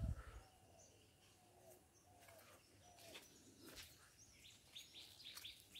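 Near silence with faint, scattered bird chirps and short calls, and a brief low bump at the very start.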